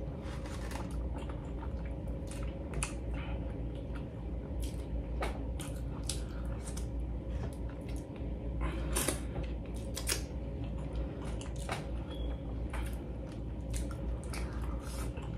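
A person chewing mouthfuls of fufu with egusi soup, close to the microphone: irregular short mouth clicks while eating, over a steady low hum.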